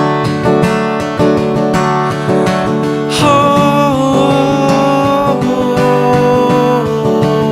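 Acoustic guitar strummed in an even rhythm, live. About three seconds in, a held melody line with slowly sliding pitch enters over the strumming and carries on.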